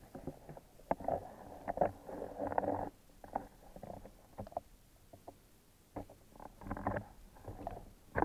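Muffled underwater knocks and clicks with stretches of rushing noise, as picked up by a submerged camera among a crowd of fish; one stretch is about a second in, another near the end, and a sharp knock closes it.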